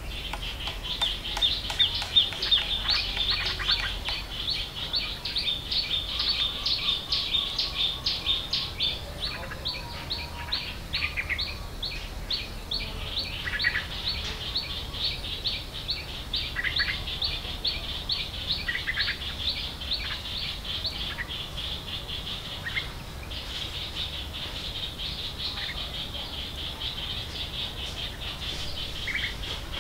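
Birds chirping: a fast run of short, evenly repeated high chirps, several a second, with scattered lower chirps and a brief whistle.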